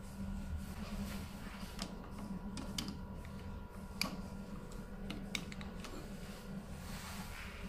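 Light plastic clicks and taps from ink tubes and ink-sack (damper) fittings being handled on a UV printer's print head carriage, about six in all, the sharpest about 4 s in. A steady low hum runs underneath.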